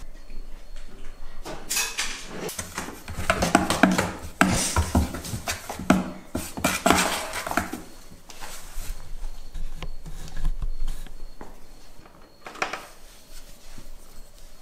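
Two cats play-fighting at a cardboard box: a busy run of scratching, tapping and clattering on the cardboard in the first half, then a few scattered knocks.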